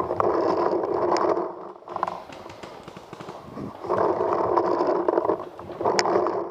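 Footsteps of a paintball player running through dry leaf litter in a forest, coming in three spurts of quick, rough, scuffing strides.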